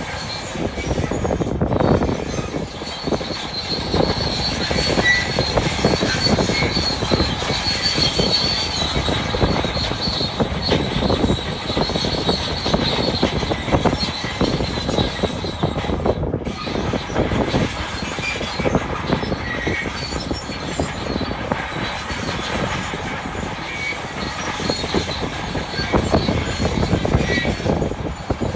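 Bulldozer working under load: the diesel engine runs hard while its steel tracks clank and squeal, with a high squeal strongest over the first half, amid a dense clatter of knocks from the tracks and stones.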